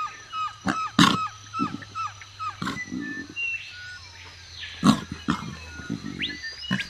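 Animal calls: a steady string of short, falling calls repeating a few times a second, with two longer high calls that rise and fall. Three sharp, loud knocks and a few low calls are mixed in.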